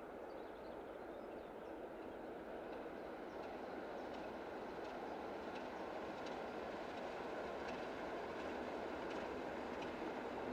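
Distant diesel locomotive hauling a passenger train, a steady engine-and-wheel rumble that grows gradually louder as it approaches.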